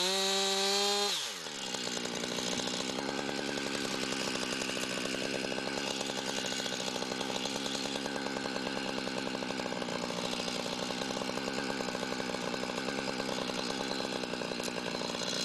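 Chainsaw engine running fast, then dropping in speed about a second in and running on steadily at a lower speed.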